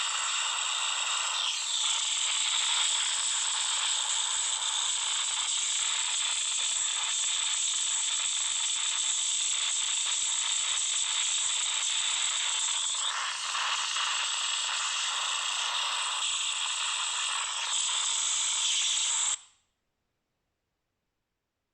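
Samsung Galaxy Note 9 loudspeaker emitting a loud, steady, harsh static-like hiss with a couple of faint sweeping tones in it, cutting off suddenly near the end. It is the random speaker-noise fault that, according to the owner, only a phone reboot stops.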